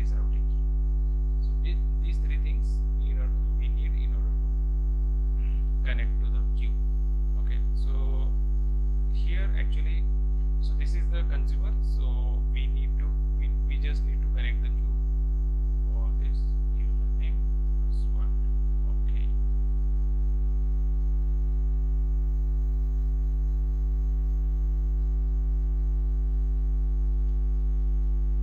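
Steady low electrical mains hum on the recording, with its overtones. Faint scattered clicks run through the first two-thirds, then stop.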